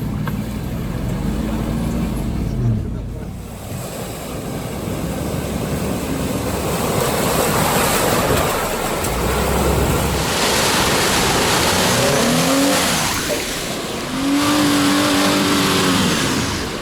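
Off-road vehicle engine revving hard, its pitch rising and falling a few times in the second half, over a loud steady rushing noise.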